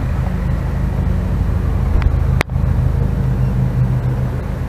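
Steady low engine rumble from a motor vehicle, with a sharp click about two and a half seconds in.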